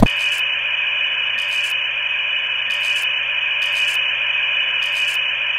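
Steady electronic static hiss, pitched fairly high and held at an even level, with a brief brighter crackle of hiss about every second and a half.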